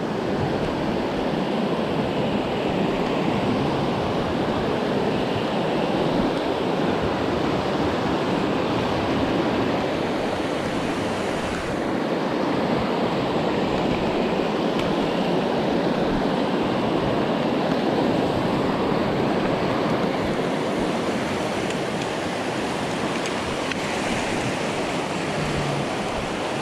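Fast river rapids rushing over boulders close by: a steady, loud rush of white water.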